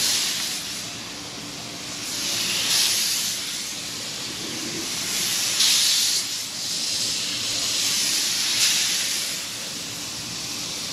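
Seasoned, buttered redfish sizzling on a smoking-hot griddle as it blackens. The hiss swells and eases about every three seconds.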